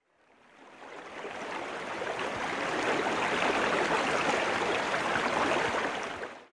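Rushing stream water, swelling in over the first couple of seconds, holding steady, then fading out just before the end.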